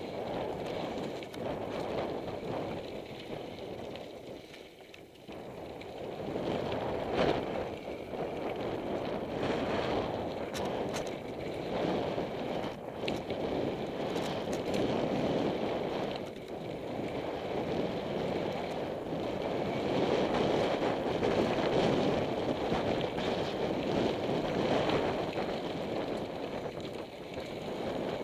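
Mountain bike riding fast down a loose gravel trail: tyres crunching over the stones and wind rushing over the microphone, rising and falling, with occasional sharp clicks and knocks from the bike over bumps.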